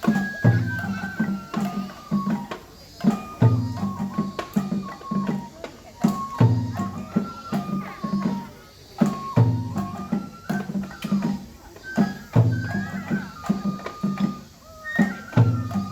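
Japanese festival music (matsuri-bayashi) for a lion dance: a high flute melody of held, stepping notes over a taiko drum pattern that repeats about every three seconds.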